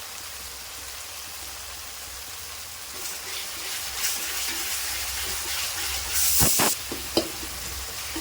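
Onion-tomato masala sizzling in hot mustard oil in a pan: a steady frying hiss that gets louder about three seconds in, with a short louder burst of hissing and a couple of knocks near the end.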